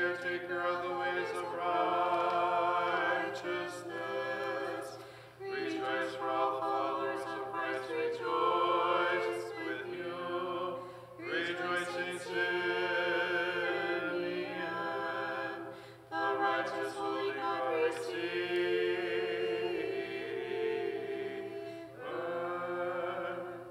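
Church choir singing a cappella in phrases a few seconds long, with short breaths between them: Orthodox liturgical chant.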